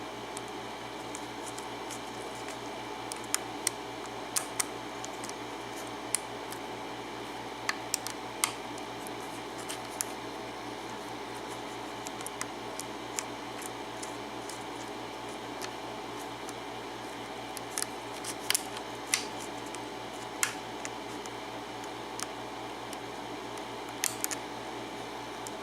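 Small, sharp metallic clicks and ticks, scattered irregularly, some in quick pairs and clusters: a lock pick working the pin stacks of a Faultless pin-tumbler lock under light tension, with pins setting. A steady background hum runs underneath.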